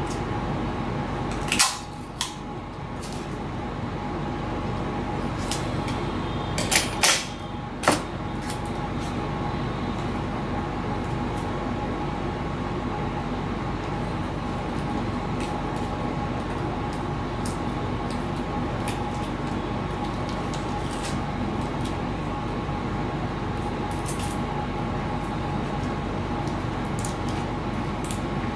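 Steady hum of a fan with a few faint steady tones, broken by short sharp clicks and crackles of clear tape and a servo being handled at the bench, loudest about 1.5 s in and around 7 to 8 s in.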